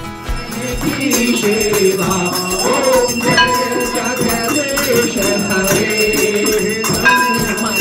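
Devotional hymn singing (a bhajan) with rhythmic jingling hand percussion.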